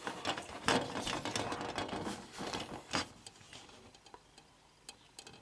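Grey plastic model-kit sprue of wing parts being handled: a quick run of clicks and scraping for about three seconds, then a few faint clicks.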